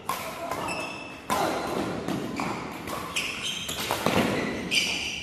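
Badminton doubles rally: sharp racket strikes on the shuttlecock about once a second, mixed with short high squeaks of court shoes on the floor, echoing in a large hall.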